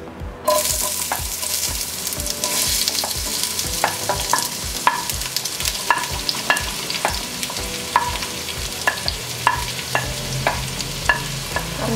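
Sliced onions hitting hot coconut oil in a kadai and sizzling, starting suddenly about half a second in. A knife ticks and scrapes against a plate as more onion slices are pushed into the pan.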